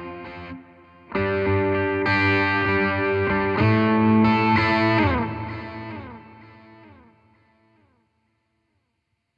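Electric guitar played through the Playwell Tank-G multi-effects unit on preset 4C, a distorted, effects-laden tone: several chords strummed, then the pitch slides down as the last chord fades out, leaving silence for the last second or so.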